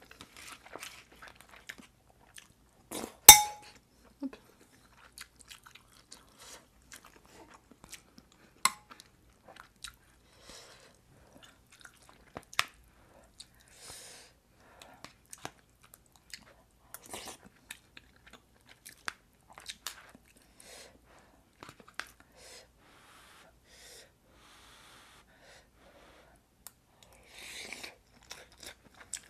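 Close-up eating sounds: chewing mouthfuls of kimchi stew, with a metal spoon clinking against the ceramic pot. The loudest is a sharp clink with a short ring about three seconds in, with another strong one near nine seconds.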